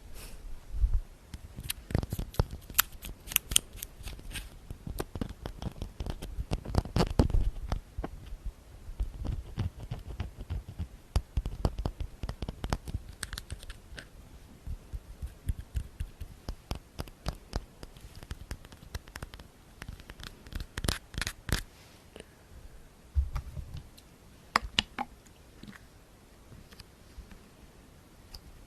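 Close-miked ASMR tapping and scratching: quick, irregular sharp clicks and taps, dense in the first half and sparser later, with a few low thumps among them.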